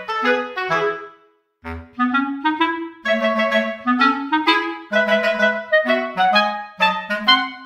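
Background music: a lively melody of quick, short notes on a wind instrument, breaking off briefly about a second and a half in before carrying on.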